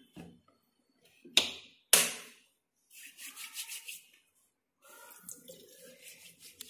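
Two sharp clicks, then wet hands rubbing a runny liquid face wash into a lather: a quick pulsing swish that breaks off for about a second and starts again.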